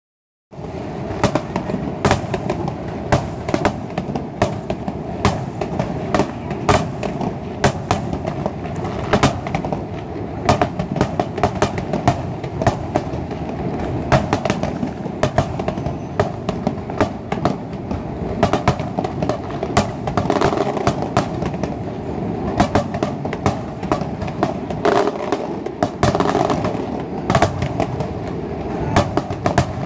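Fireworks display going off continuously: many sharp bangs at irregular intervals, several a second at times, over a dense rolling rumble of distant explosions.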